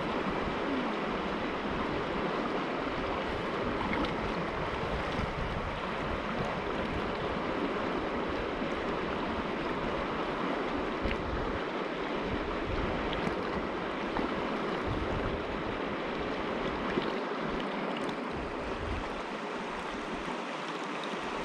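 Steady rush of a shallow creek running over rocks, with wind buffeting the microphone now and then.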